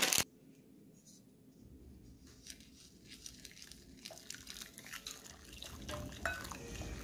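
A short loud knock at the start, then water pouring from a saucepan into a glass bowl of sugar and lime gelatin powder, splashing and trickling as a wooden spoon stirs, with a couple of light clicks of the spoon against the glass.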